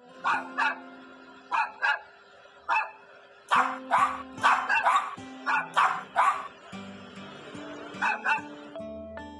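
A dog barking in short, sharp barks, some in quick pairs, louder and faster in the middle, over background music.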